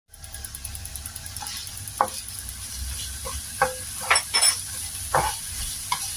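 Sliced onions sizzling in oil in a stainless steel frying pan while a spatula stirs them. About half a dozen sharp scrapes and taps of the spatula against the pan sound over the sizzle, most of them in the second half.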